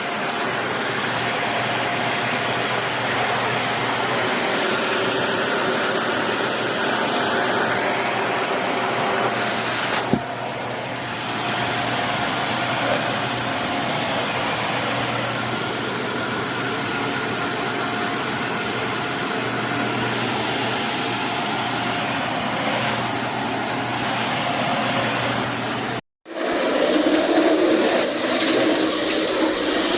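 Dyson Ball Animal 2 upright vacuum cleaner running steadily. Near the end the sound cuts off abruptly and comes back at once with a different tone.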